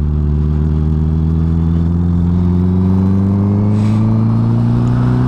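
Honda CB650R's inline-four engine pulling in gear under steady throttle, its pitch rising slowly as the motorcycle gathers speed.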